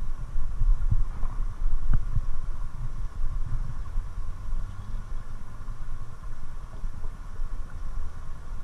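Fast-flowing river riffle rushing past, with wind buffeting the microphone as a fluctuating low rumble. A faint knock about two seconds in.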